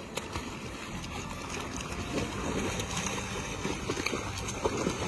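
Dogs splashing and paddling through shallow muddy water, with wind rumbling on the microphone.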